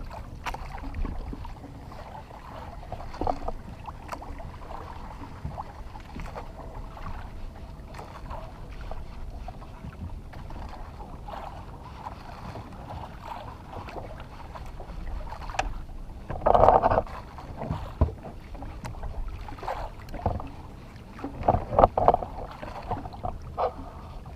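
Small fishing boat at sea: steady low wind and water noise around the hull, with a few short louder knocks or bumps about two thirds of the way through and again near the end.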